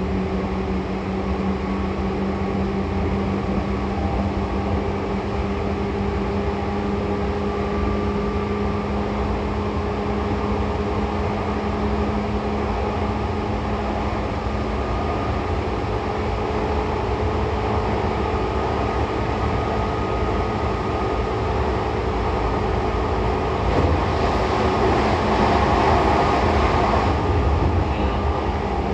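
Seibu 2000 series electric train running, heard from inside the car above the underfloor line breaker: steady low rumble with a constant electrical hum. About 24 seconds in a louder hissing rush swells up and fades again some three seconds later.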